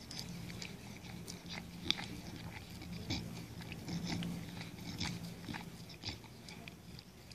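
Chow chow licking and gnawing at a frozen homemade dog ice lolly: irregular wet clicks and small crunches, over a low steady hum.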